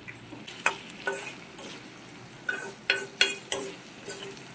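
A spatula scraping and knocking against a metal kadai as duck meat and potatoes are stirred in hot oil. There are about seven sharp strokes, each ringing briefly, over a faint sizzle.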